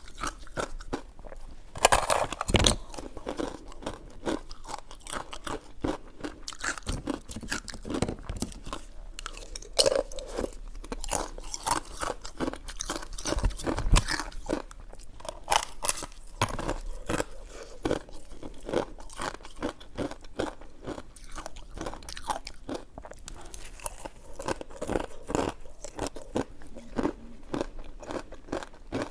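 Close-miked chewing and biting of coconut sticky rice cake: a dense, irregular run of short clicks and mouth sounds, with a few louder bites about two seconds and fourteen seconds in.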